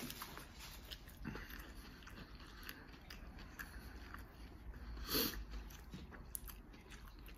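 A person chewing a mouthful of hard-shell shredded chicken taco, its shell partly gone soft, with small wet mouth clicks and crunches. A louder bite comes about five seconds in.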